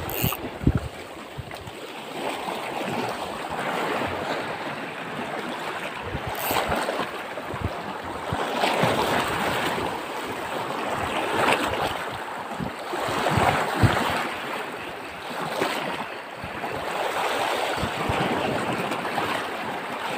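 Sea waves washing over a rocky shore, the surf swelling and ebbing every few seconds.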